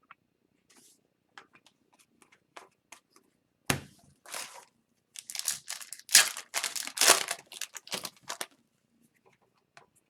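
Foil wrapper of a hockey card pack being torn open and crinkled: small clicks, a sharp crack about four seconds in, then a few seconds of dense crackling.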